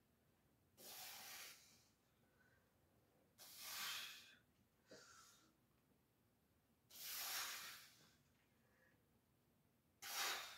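A man breathing hard through a set of dumbbell bench presses: four forceful exhales, each about a second long and about three seconds apart, with near silence between them.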